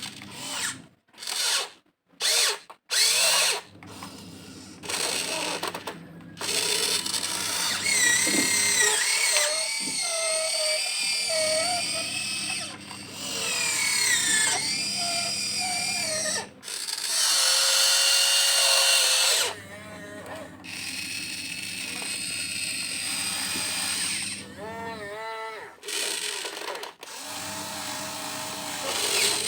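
Electric motors of a Huina 1592 RC excavator whining. The whine stops and starts again several times and slides up and down in pitch as the machine works.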